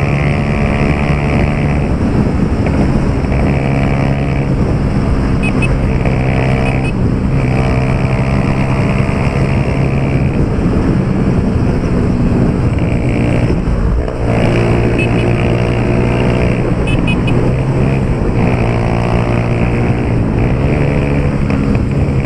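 Honda CG 150 Titan's single-cylinder four-stroke engine running through a Pro Tork 'Ronco Forte' aftermarket exhaust while riding, the exhaust note rising and falling repeatedly as the throttle is worked. The aftermarket exhaust gives it a deep rumble.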